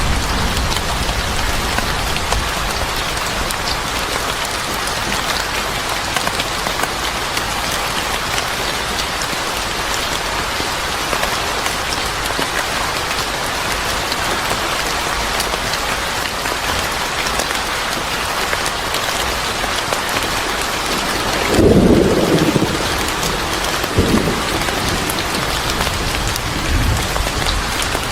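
Steady rain falling on a surface, with a low rumble of thunder about three-quarters of the way through and two shorter rumbles after it.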